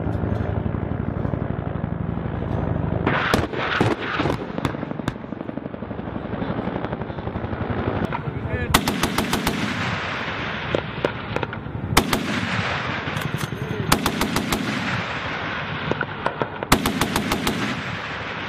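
AH-1Z Viper's 20 mm three-barrel cannon firing in short rapid bursts, the heaviest about nine seconds in and twice more near the end, over a steady hum of helicopter rotor and engine.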